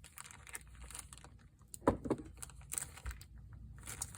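Small handling noises: scattered light clicks and rustles, with one louder brief sound about two seconds in.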